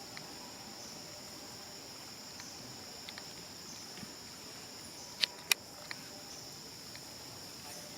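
Steady high-pitched insect drone, like crickets or cicadas, with two sharp clicks about five seconds in.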